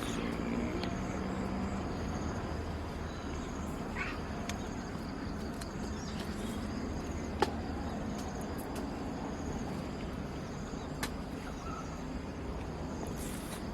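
Outdoor ambience: a steady chirring of insects, a faint short bird call about four seconds in, and a few sharp clicks, the loudest a little past halfway.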